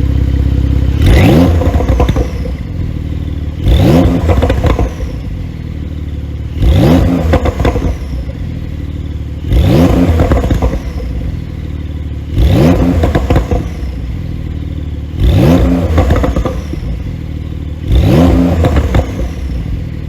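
Exhaust of a 2020 Porsche 911 Carrera 4S twin-turbo flat-six with its exhaust flaps held fully open, idling and being blipped seven times, about once every three seconds: each rev rises quickly and falls back with pops and crackles on the overrun.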